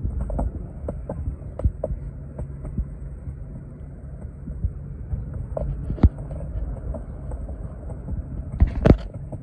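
Penny board wheels rolling on pavement: a steady low rumble broken by repeated short clicks, with a louder knock about six seconds in and a cluster of sharp knocks near the end.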